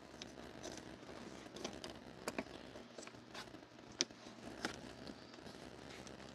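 Faint, irregular small clicks and ticks of an Allen key turning a small bolt loose in a plastic cargo-area tie-down point, with hands handling the plastic trim.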